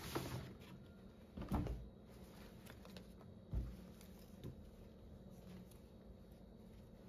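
A paper shopping bag rustling and cloth being handled as a garment is taken out of the bag, with a couple of soft thumps as things are set against the counter.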